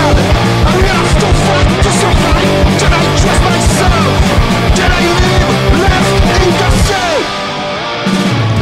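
Hardcore punk recording with a surf flavour: distorted electric guitar, bass and busy drums. About seven seconds in, the drums drop out for a moment and the level dips, then the full band comes back in.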